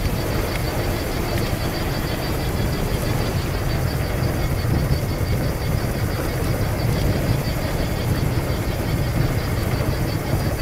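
A mountain bike rolling fast down a dirt trail: a steady, loud rumble of wind on the action camera's microphone, mixed with the noise of the tyres on dirt.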